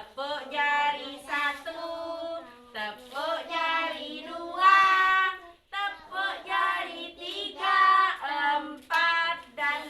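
Young children singing a song together in unison, with held, melodic notes.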